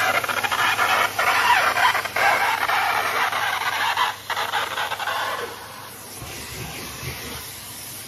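Numatic Henry cylinder vacuum cleaner sucking through its hose and bent metal wand along carpeted stair edges: a loud rush of air that dips briefly three times, then drops to a quieter, lower hum about five and a half seconds in.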